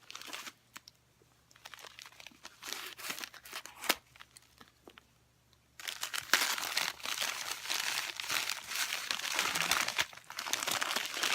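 Packing material crinkling as an item is unwrapped by hand: scattered rustles at first, then steady, dense crinkling from about six seconds in.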